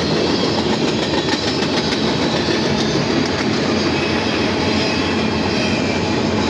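Freight cars of a CSX mixed manifest train rolling past: a steady, loud rumble of steel wheels on rail with faint repeated clicks.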